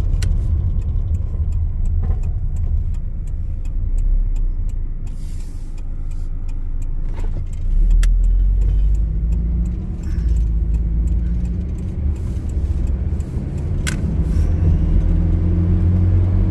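The 2000 Nissan Frontier pickup's KA24DE four-cylinder engine running, with road noise, while the truck is driven. The engine note shifts up and down in pitch a couple of times, over scattered light clicks and rattles.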